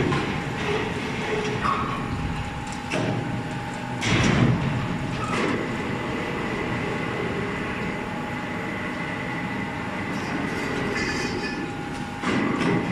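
Foundry machinery running: a steady hum with a thin, continuous whine, broken by a few heavy knocks, one at the start, one about four seconds in and one near the end.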